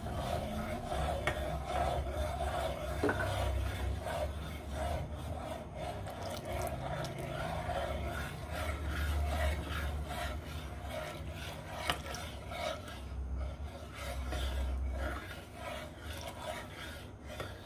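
Metal spoon scraping and rubbing continuously against the bottom of a metal pot as vanilla custard mix is stirred into milk, with a brief knock near the end.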